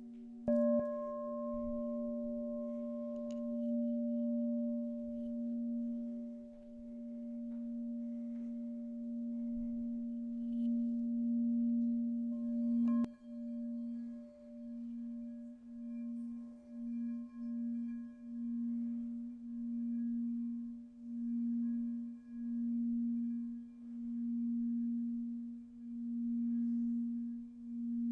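Singing bowl ringing with a steady low hum and fainter higher overtones. It is struck near the start and again about halfway through, and from then on the tone swells and fades in a regular pulse about once a second.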